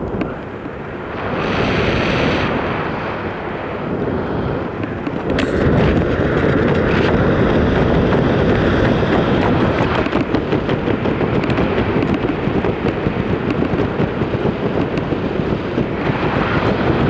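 Wind rushing and buffeting against the microphone, getting louder about five seconds in and then staying steady.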